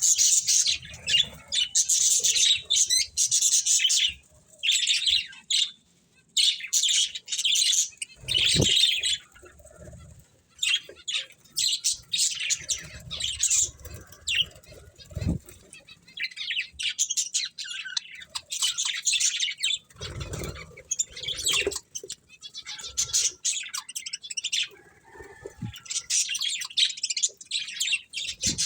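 Pet budgerigars chirping and warbling in rapid high-pitched chatter, in bursts of a second or two with short pauses between, and a few dull thumps now and then.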